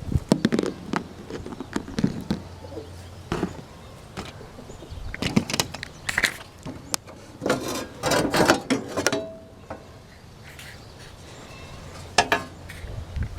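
Irregular metallic clicks, clanks and rattles from hand work on a riding lawn tractor's parts, coming in small clusters with short pauses between.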